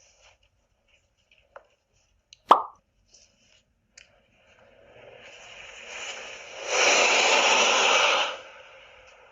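A single sharp knock about two and a half seconds in, then a rushing noise that swells, holds loud for about a second and a half, and drops back to a low hiss, heard through a doorbell camera's microphone.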